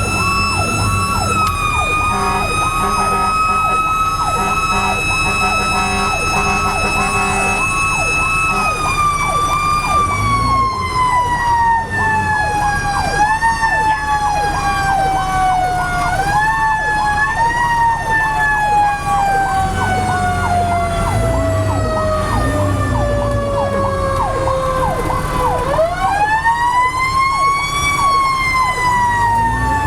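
Fire truck sirens on an emergency run: an electronic siren yelping rapidly, about twice a second, over a mechanical siren whose tone slowly winds down, gets a couple of brief boosts, and winds back up about 26 seconds in. A low engine rumble runs underneath.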